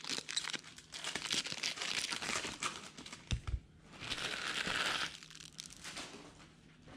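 Foil wrappers of baseball card packs crinkling and crackling as they are handled and opened by hand, with a denser, louder burst of crinkling about four seconds in.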